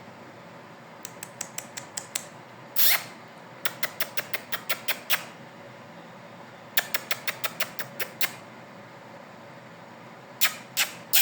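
Runs of quick, sharp clicks, six to nine close together in each run, with short pauses between runs. A few single louder clacks stand out from the runs.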